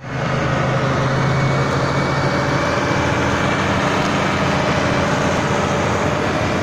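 Claas Ares 656 RZ tractor's diesel engine running at a steady speed, a constant even hum.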